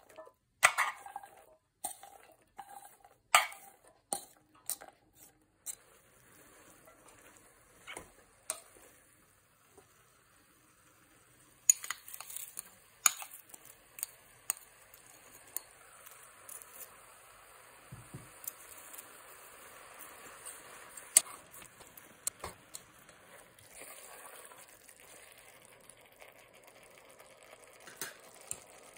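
Chopped vegetables, then sliced carrots, tipped into a stainless steel stockpot of mushrooms and stirred with a spatula: scattered knocks and scrapes of the spatula and bowl against the pot. In the second half a faint steady sizzle of the vegetables frying in olive oil sets in, with a few more clacks.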